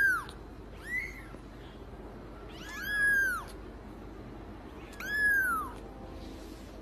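A cat meowing four times. Each call rises and falls in pitch, and the second is short.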